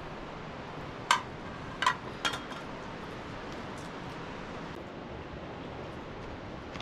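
A metal ladle knocks three times against a metal cooking pot in quick succession, the last knock leaving a short metallic ring, over a steady background hiss.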